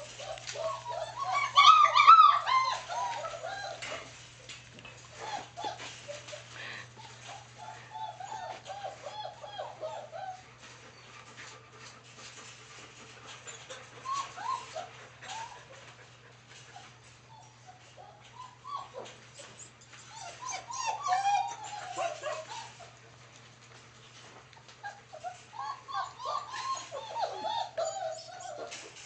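Four-week-old German Shepherd puppies whimpering in bouts of short, high calls, loudest about two seconds in, with quieter bouts through the rest. A steady low hum runs underneath.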